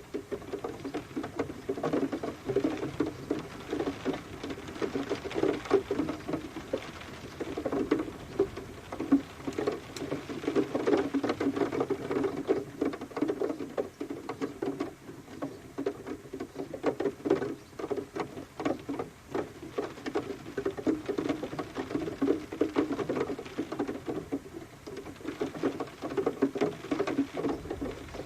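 Rain pattering in dense, irregular drops, continuous and steady.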